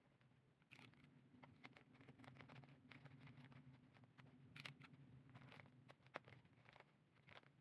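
Near silence: faint crinkles and light taps of wrapping paper and cardboard being folded and pressed by hand around a bouquet, over a low steady hum.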